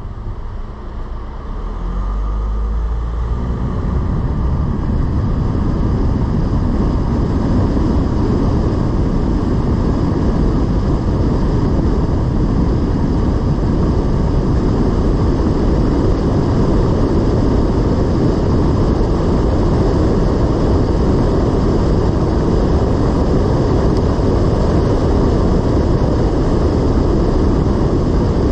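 Car driving along a road: steady road and engine noise that grows louder over the first few seconds, then holds even.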